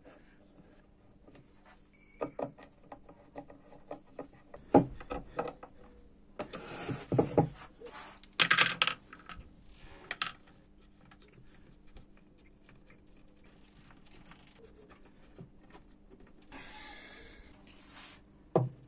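Hands handling small wooden pieces and screws on a workbench: scattered light wooden knocks and clicks, several short rubbing or scraping sounds, and a sharper knock near the end.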